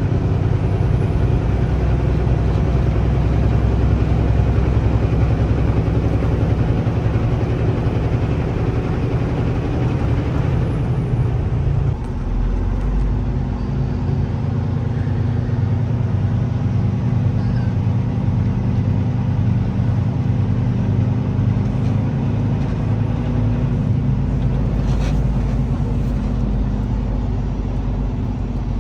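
Semi-truck's diesel engine droning steadily with road and tyre noise, heard from inside the cab while driving on the highway. About twelve seconds in, the engine note briefly dips and then settles at a different pitch.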